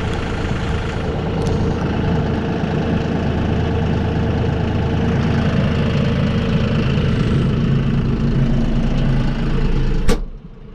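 John Deere 5075E tractor's diesel engine idling steadily. A sharp click comes near the end, and the sound then drops off sharply.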